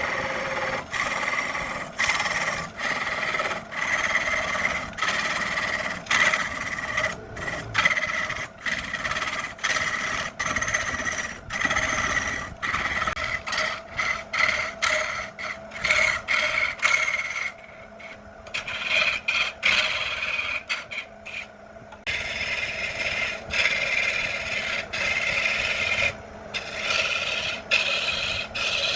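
A tool scraping and rasping against wood in a run of strokes broken by many brief pauses, with a steady ringing tone under it; it drops quieter for a few seconds past the middle.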